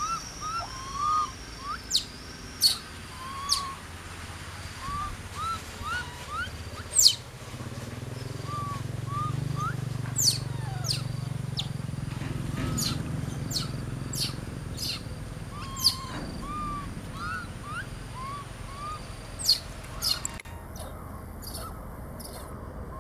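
Baby macaques calling: a run of short, arched squeaks repeated every half second or so, with sharp high squeals between them. A low rumble sits underneath through the middle.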